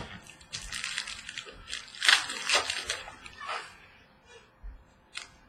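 Football trading cards being handled and slid against one another: a run of rustling, scraping sounds, loudest about two seconds in and dying away by about four seconds, with a short click near the end.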